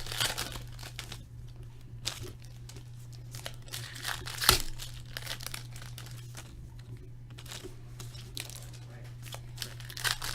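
Trading-card pack wrappers crinkling and tearing as packs are opened, with cards handled in short rustling bursts and one sharp click about four and a half seconds in.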